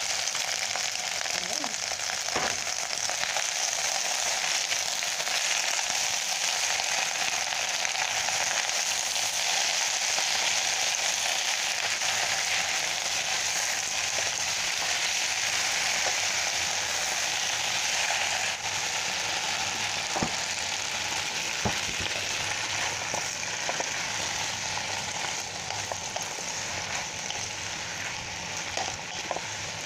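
Choy sum and tofu sizzling in oil in a non-stick pan while being stir-fried, with a wooden spatula clicking and scraping against the pan now and then. The sizzle eases a little near the end.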